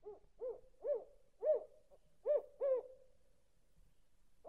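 California spotted owl hooting: six short hoots, each rising then falling in pitch, the first few getting louder.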